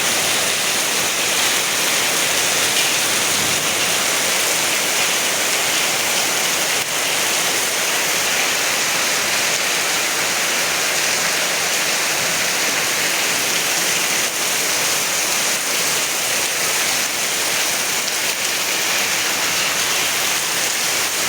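Very heavy rain pouring down in a steady, unbroken hiss.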